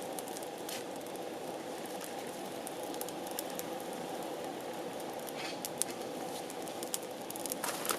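Wood campfire burning with a steady low hiss and scattered sharp crackles and pops.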